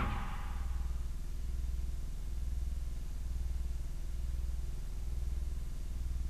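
A steady low electrical hum on an old VHS tape's audio track, with no programme sound over it. The last note of a commercial jingle dies away right at the start.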